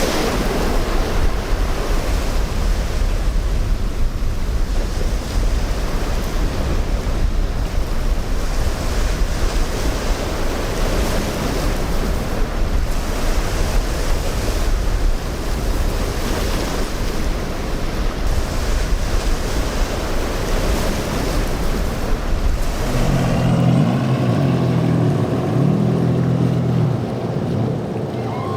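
Wind buffeting the microphone over the rush of surf and breaking waves. About 23 seconds in this gives way to the drone of boat engines, their pitch rising and falling with the throttle.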